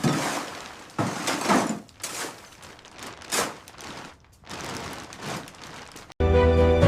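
A series of irregular crashes, each with a sudden start and a noisy tail that dies away over about half a second, like things breaking or falling. Music cuts in suddenly near the end.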